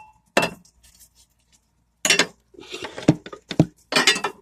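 The air conditioner's support rail is handled and slid into its mounting channel. There is a knock just under half a second in, then from about halfway a run of clicking, clinking and scraping knocks.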